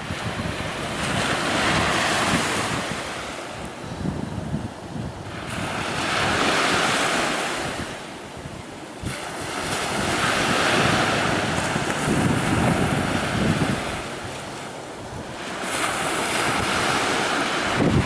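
Small surf breaking and washing up on a sandy beach, swelling and fading about every four to five seconds, with wind buffeting the microphone.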